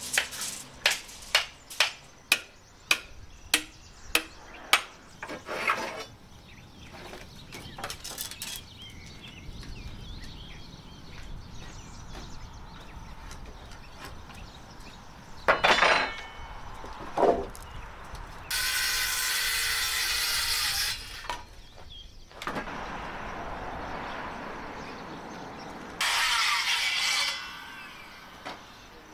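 A hammer striking repeatedly, about two blows a second, for the first few seconds. Later a power tool runs in several bursts of one to three seconds each.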